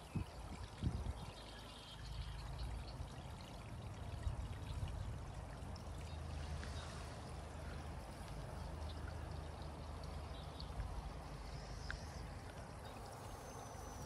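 Quiet marsh ambience: a steady low rumble and hiss, with faint bird chirps scattered through and a short falling whistle near the end. A couple of soft thumps come in the first second.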